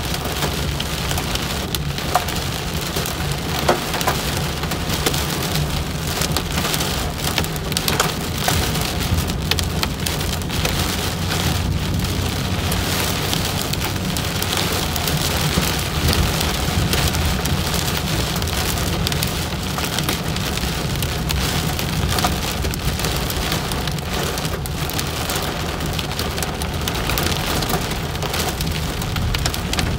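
Heavy rain drumming on a car's roof and windshield, heard from inside the cabin: a dense, steady hiss with many sharp individual drop hits, over a steady low rumble of the moving car.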